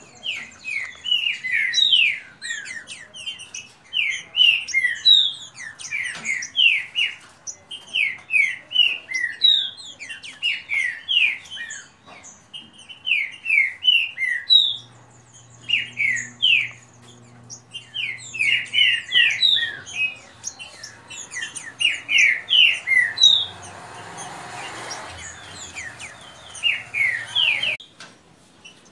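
Caged trinca-ferros (green-winged saltators) singing against each other in a fast-song contest. They give quick runs of loud sliding notes, phrase after phrase, with short breaks between phrases.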